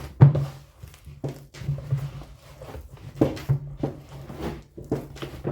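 Hands mixing and pressing soft chapati dough in a bowl, made from flour, fat and hot water, giving irregular soft knocks about twice a second.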